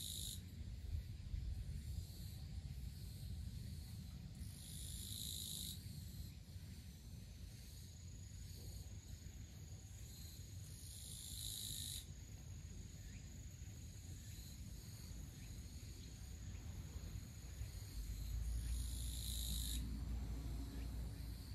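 An insect calls in short, high, buzzy bursts of about a second each, four times at roughly six-second intervals, over a steady low rumble. A faint, steady high whine runs through the middle of the stretch.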